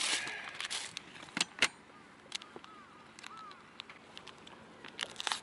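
A plastic bag rustles as a hand digs through it. A clear plastic bait package then crinkles and clicks as it is handled, with two sharp clicks about a second and a half in and scattered small crackles after them.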